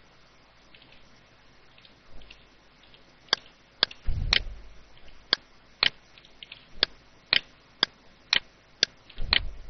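Computer mouse clicking: sharp single clicks about two a second from about a third of the way in, with a dull low thud twice.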